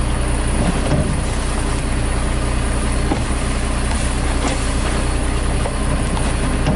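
WhiteGMC garbage truck's diesel engine idling steadily, with a few knocks and clunks as plastic trash cans are emptied by hand into its front-loader bin.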